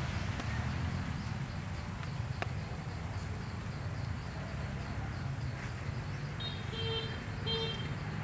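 Steady low outdoor rumble, with a few short high chirps near the end.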